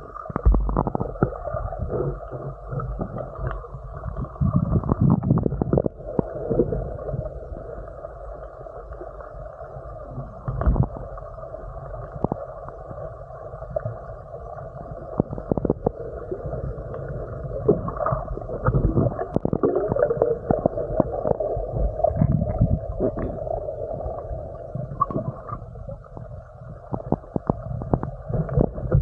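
Muffled underwater rumble of water moving around a submerged action camera, broken by irregular knocks and thuds from swimmers kicking and the camera being handled.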